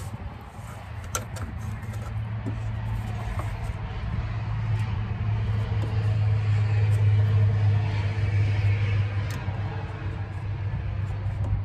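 A vehicle engine running with a steady low hum that grows louder to about seven seconds in and then eases off, with a few light clicks as a rubber radiator hose is worked onto the radiator neck.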